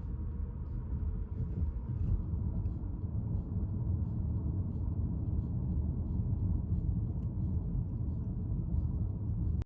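Steady low rumble of a moving vehicle, with faint light ticks scattered through it.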